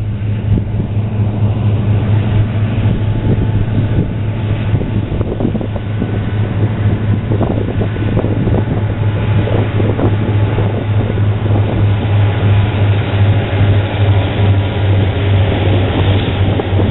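Union Pacific freight train going by: the locomotives' diesel engines give a steady low hum under the rumble of the cars rolling on the rails, with wind buffeting the microphone.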